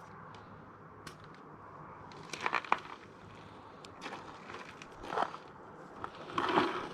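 Short crackling, scraping bursts of hands and a plug tool working a tubeless tire plug into the tire, three times, about two seconds apart.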